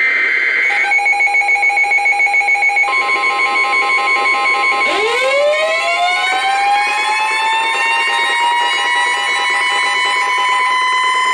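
Emergency alert tones layered on top of one another, signalling a tornado warning. A short burst of screeching digital header tones comes first, then a rapidly pulsing beep. About three seconds in, a steady weather-radio warning tone near 1 kHz joins, and from about five seconds a siren-like tone rises in pitch and holds, dipping slightly near the end.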